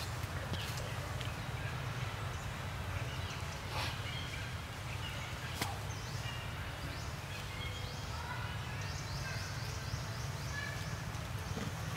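Outdoor forest ambience: a steady low rumble with faint high chirps and a rapid trill in the second half, and a few sharp clicks.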